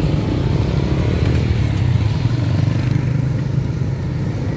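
Motorcycle and scooter engines running in street traffic: a steady low drone.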